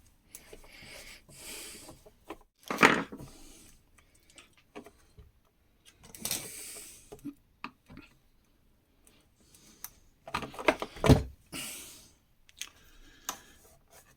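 Scattered clicks, knocks and short scrapes from hand tools and the plastic housing of a Makita site radio being handled, with the loudest knocks about eleven seconds in.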